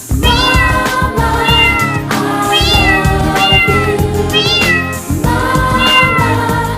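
Music: an 80s-style song with a lead line that swoops up and down in pitch about once a second over a steady bass and chords.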